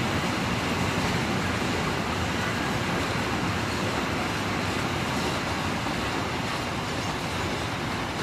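Loaded flat wagons of a cement freight train rolling slowly past, with a steady noise of steel wheels running on the rails.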